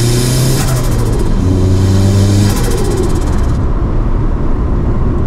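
Turbocharged Mitsubishi Mirage engine pulling under boost and lifting off twice, about a second in and again near the middle. Each time the Garrett T25 turbo, run without a blow-off valve, gives a rapid flutter (the "dose" noise). After that the engine settles to a lower, steadier running note.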